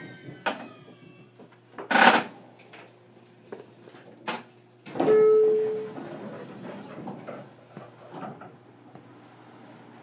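Inside a standing JR Kyushu 817 series electric railcar: a sharp loud knock about two seconds in, a click, then a loud beep about a second long, over the low steady hum of the car's equipment.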